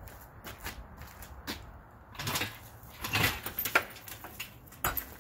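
Rear axle hanging from the engine hoist being swung and turned by hand, giving scattered metallic knocks and rattles, with a sharp knock near the end. The winch is not running.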